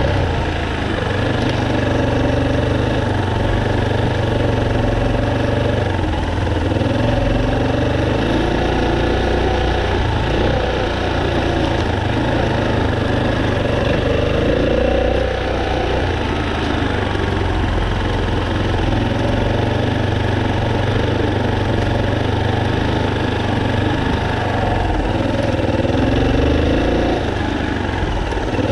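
Off-road motorcycle engine running at low, slowly rising and falling revs as the bike rides over rough ground, with no hard revving.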